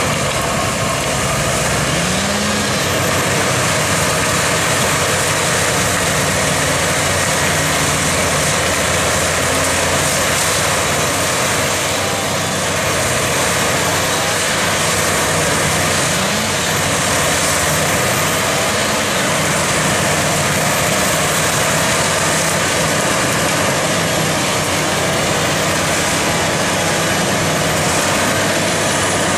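New Holland tractor engine running steadily under load while driving an AHWI forestry mulcher through brush and saplings. The mulcher rotor's shredding noise mixes with the engine into one dense, unbroken machine sound.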